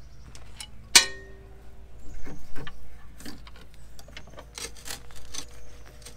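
Hands working a rubber Firestone air helper spring loose inside a rear coil spring: scattered rubbing, scraping and small knocks against the suspension parts. A sharp metallic clink with a brief ring sounds about a second in.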